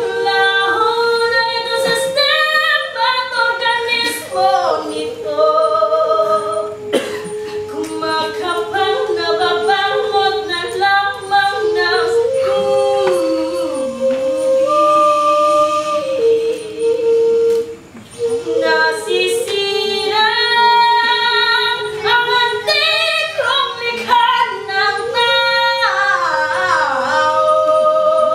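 Several voices singing together, female voices to the fore, with long melodic lines weaving over one low held note.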